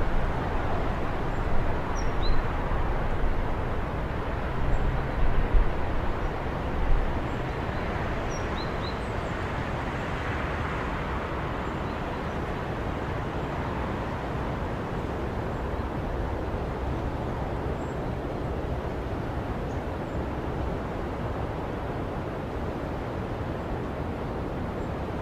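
Steady outdoor background hiss with low rumbling gusts during the first seven seconds, and a few faint, brief high bird chirps in the first nine seconds.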